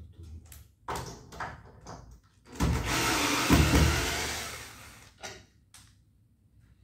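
Cordless screwdriver driving a self-tapping screw into a ceiling profile overhead. After a few light knocks, the motor runs under load for about two seconds, starting a little under three seconds in.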